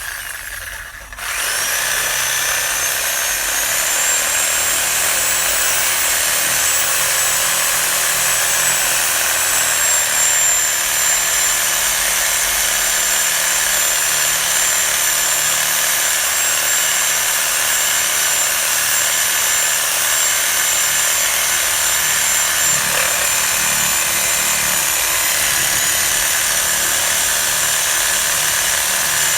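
Corded Titan reciprocating saw with a high-carbon-steel wood blade, cutting into a bay tree stump. It starts about a second in and runs steadily, with a high motor whine that rises as it comes up to speed and then holds.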